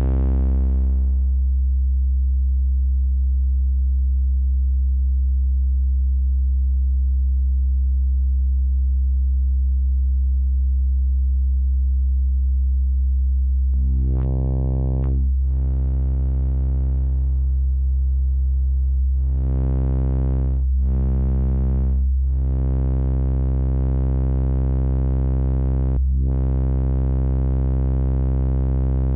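Korg NTS-1 digital synthesizer holding one steady low note on a custom multi-vector phaseshaping oscillator, its tone changing as the knobs sweep the waveform's inflection points while the pitch stays put. For the first half it is almost a pure sine tone. About halfway through it turns bright and buzzy, then shifts abruptly between brighter and duller tones every few seconds.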